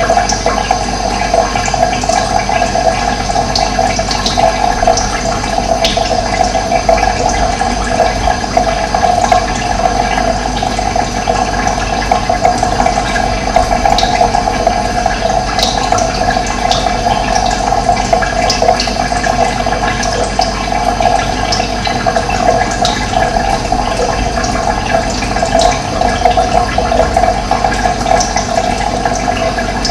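Running water rushing steadily, with short bird chirps scattered over it.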